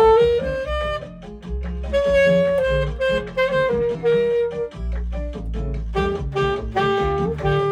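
Alto saxophone playing a jazzy melody of quick changing notes with some longer held ones, over a low bass accompaniment.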